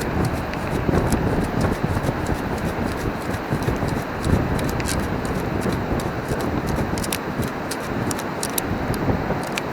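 Sand and shell grit rattling and scraping in a beach sand scoop as it is shaken out to free a coin, a stream of short sharp clicks over a steady background of surf and wind.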